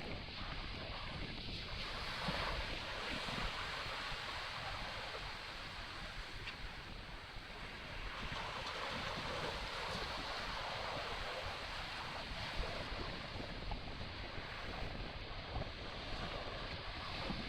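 Steady rush of wind and waves, with wind buffeting the microphone as an uneven low rumble.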